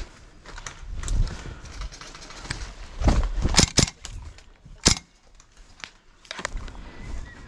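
An airsoft player's heavy breathing and footsteps, with a quick cluster of sharp cracks about three seconds in and another about five seconds in.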